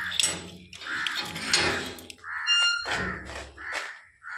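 A padlock is unhooked and the bolt of a rusty wrought-iron gate is slid back, with metal clanking and scraping, then the gate creaks open in several short squeals.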